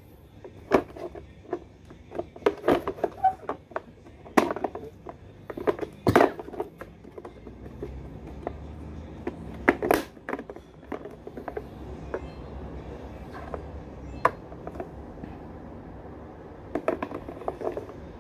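Hard plastic toy armored truck being handled and turned over, giving scattered sharp clicks and knocks of plastic, thickest in the first half and again in a short run near the end.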